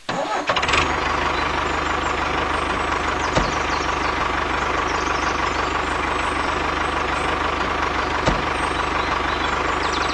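Vehicle engine running steadily, with a thin steady whine over the rumble and two short knocks, one about three seconds in and one near the end.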